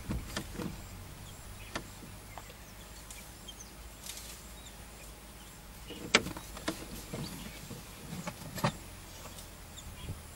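Low steady hum of an idling vehicle engine, with scattered clicks and knocks; the sharpest knocks come about six seconds in and again near nine seconds.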